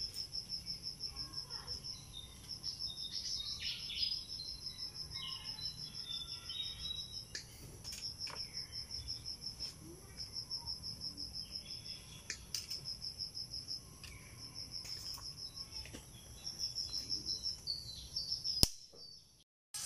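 Cricket-like insects chirping in rapid high-pitched pulses, in runs of one to two seconds with short breaks, over a steady high insect whine. Scattered sharp clicks come through, the loudest one just before the end.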